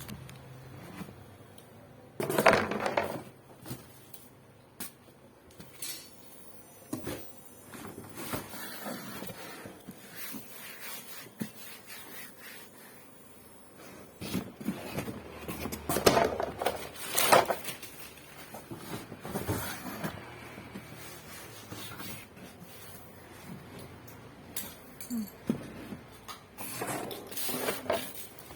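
Hands handling an Olymplast plastic chair: irregular knocks, taps and rubbing on the plastic, with a few louder knocks spread through.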